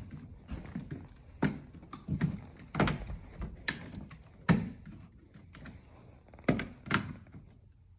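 An irregular series of sharp plastic clicks and knocks as a thermostat's cover is handled and pressed onto its wall base.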